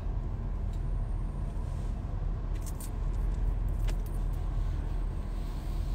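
Steady low engine and road noise heard from inside a car's cabin, with a few faint clicks.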